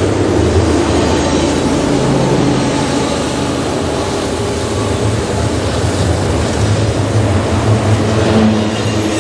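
Double-stack freight train rolling past close by, a steady low rumble of wheels on rail, with the diesel engine of a mid-train Union Pacific locomotive adding its hum as the unit goes by.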